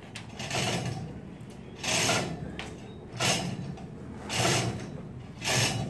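Ratchet wrench being worked in short strokes, a rasping ratchet sound about once a second, five times.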